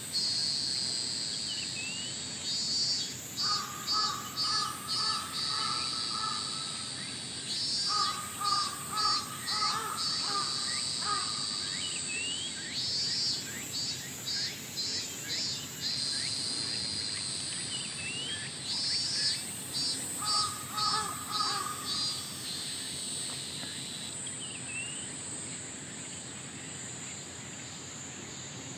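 Steady, high-pitched insect drone. About every five seconds a call of four to six quick beats cuts in over it, joined by short rising chirps.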